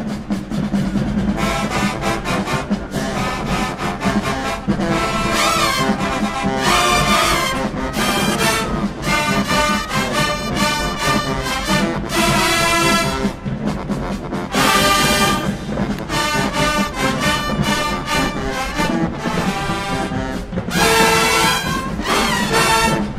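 Marching band playing: brass section with trumpets, trombones and sousaphones over drumline hits, in a loud, punchy rhythmic passage.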